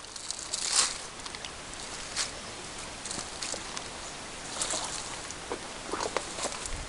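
Footsteps and rustling through dry grass and brush: irregular crunches, a few more close together near the end.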